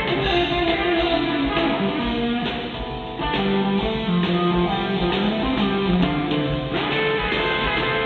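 Live rock band playing, led by an electric guitar on a Gibson SG playing a melodic line of held, changing notes over bass and drums.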